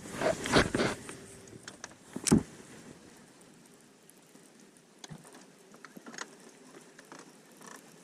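A few loud rustling knocks in the first second and a sharp thump a little over two seconds in, then faint scattered clicks.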